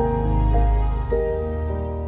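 Slow background music: sustained notes over a deep bass, with a new note entering about a second in.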